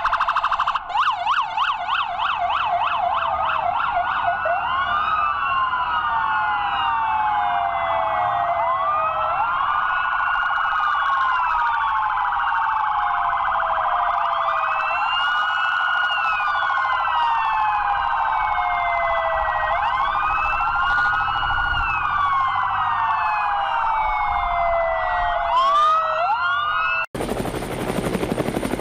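Police car sirens: a fast yelp at first, then several wailing sirens rising and falling out of step with one another. Near the end they cut off suddenly and helicopter rotor and engine noise takes over.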